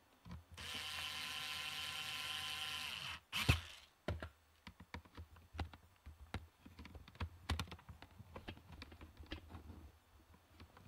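A small electric motor buzzes steadily for about two and a half seconds, then stops. A run of irregular light clicks and taps follows, the sound of small hard parts being handled.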